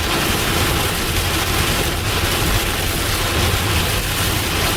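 Vehicle driving through a heavy thunderstorm, heard from inside: a steady low road and engine rumble under an even hiss of rain and wet tyres.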